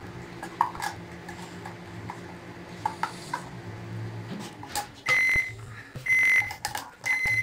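Microwave oven running with a steady low hum that stops about four seconds in, followed by its beeps, about one a second, signalling the end of a one-minute heating cycle. Light clicks of a spatula scraping cream from a can into a blender jar come earlier.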